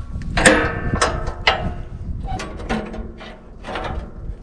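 Band-saw blade change on a Wood-Mizer LT15 sawmill: the steel band blade and wheel cover clank and scrape as the blade is worked off the wheels, with a series of sharp metallic knocks, the first few ringing briefly.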